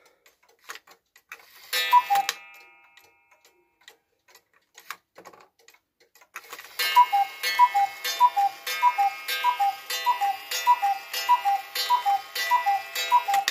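Hubert Herr cuckoo clock's high-pitched two-note cuckoo call, each call with a strike on a very small coiled gong. A single call about two seconds in, then from about six and a half seconds a run of about a dozen calls roughly 0.6 s apart as it strikes twelve, with faint ticking in between.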